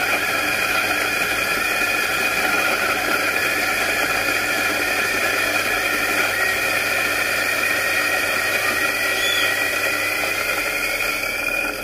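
Small electric coffee grinder running, grinding coffee beans: a loud, steady motor whine over grinding noise. Its pitch rises slightly near the end.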